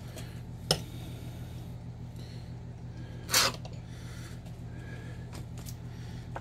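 A stainless steel meat-injector syringe being refilled from a small bowl of marinade: a short click just under a second in, then a brief noisy rush around three and a half seconds in, over a steady low hum.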